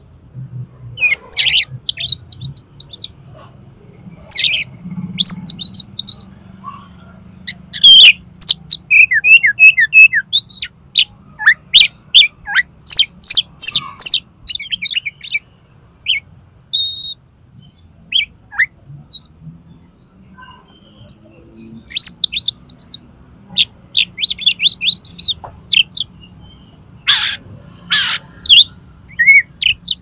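Oriental magpie-robin (kacer) singing: rapid bursts of varied high chirps, whistled notes and sharp calls, broken by short pauses.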